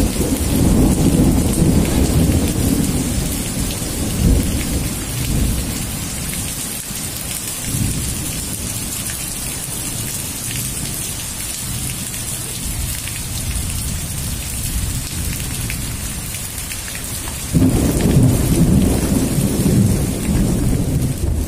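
Heavy rain falling steadily, with low rumbles that swell and fade, the loudest starting about 17 seconds in.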